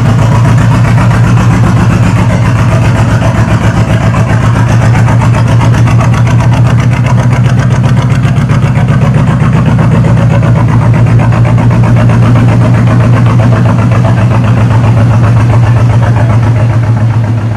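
The narrowboat Onward's engine running with a steady, even beat under way, loud and unbroken, easing slightly near the end.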